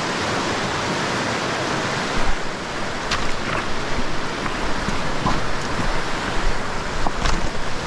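Steady rush of fast river water in a run, with wind buffeting the microphone from about two seconds in.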